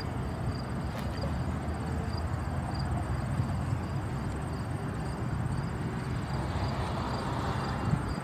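Outdoor ambience: a steady low rumble with a faint, high insect chirp repeating evenly a few times a second.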